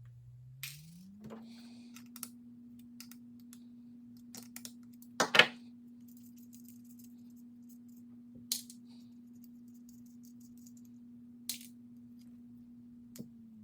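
Scattered metallic clicks and clinks of small nuts and washers being unscrewed from the panel connectors and set down, the loudest a double clink about five seconds in. A faint steady hum runs underneath and steps up in pitch about a second in.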